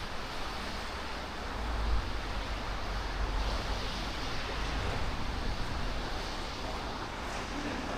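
Steady outdoor noise with wind gusting on the microphone, the low rumble swelling a couple of times in the first half.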